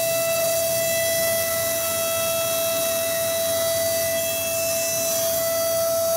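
High-speed CNC milling machine cutting an aluminium sheet: a steady high-pitched whine from the spindle and cutter, with a hiss of cutting noise above it.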